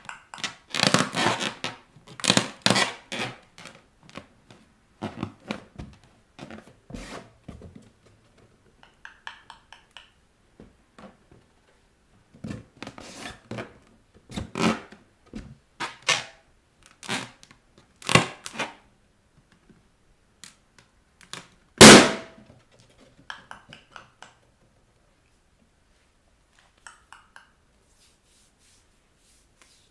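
Rubber balloons being squeezed and trodden under bare feet, giving irregular rubbery squeaks, squashing noises and thuds. One loud, sharp balloon pop comes about two-thirds of the way through.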